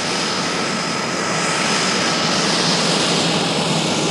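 Twin turboprop engines of a de Havilland Canada DHC-6 Twin Otter running at taxi power: a steady rushing noise with a thin high whine, slowly growing a little louder.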